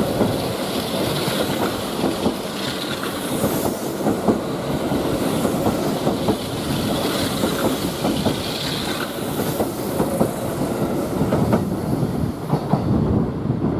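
Kintetsu 23000 series Ise-Shima Liner electric train passing close by at low speed, its wheels clicking over the rail joints in quick, uneven runs over a steady rolling rumble.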